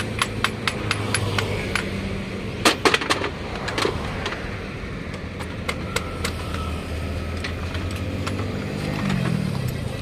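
Pneumatic impact wrench working on truck wheel nuts: a series of sharp metallic knocks, the loudest cluster about three seconds in, over a steady low engine hum.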